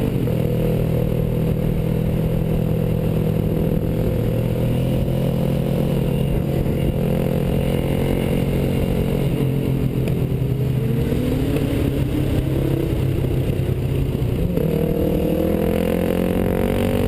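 Dirt bike engine running under way, heard from the rider's helmet camera. It holds a steady note, eases off about halfway through, then revs up and climbs steadily in pitch near the end.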